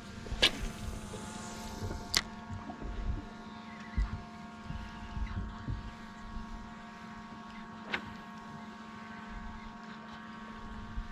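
Boat motor running with a steady hum, with low rumbling wind on the microphone and a few sharp knocks on the boat: one just after the start, one about two seconds in and one near eight seconds.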